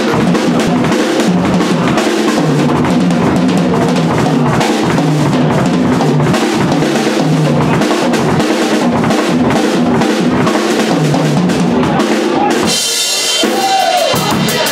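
Rock drum kit played live, with fast, steady kick, snare and cymbal strokes. About twelve and a half seconds in, the kick and snare drop out under a ringing cymbal crash.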